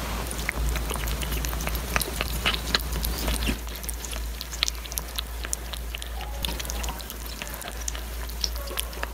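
Orange tabby kitten eating wet canned beef chunks: irregular wet smacks and clicks of chewing and licking, busiest in the first few seconds. A steady low hum runs underneath.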